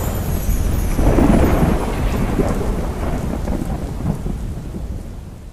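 Rumbling thunder with steady rain, swelling about a second in and fading away near the end.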